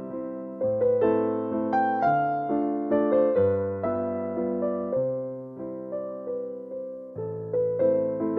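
Gentle solo piano music: slow melodic notes struck about twice a second and left to fade, over held bass notes that change every second or two.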